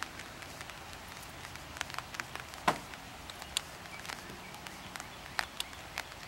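Light rain in a wetland: an even, steady hiss of rain with scattered, irregular drops ticking sharply nearby, one drop louder than the rest a little before halfway.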